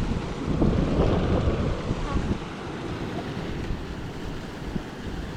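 Shallow stream water running, with wind rumbling on the microphone; the rumble and water noise swell for about two seconds near the start.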